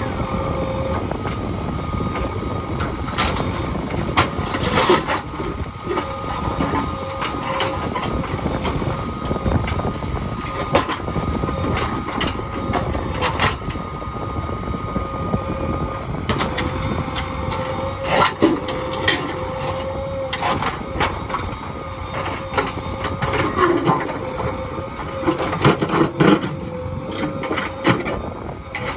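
JCB 3DX backhoe loader's diesel engine running under load with a steady whine, while the bucket knocks and scrapes against hard stone in repeated sharp strikes.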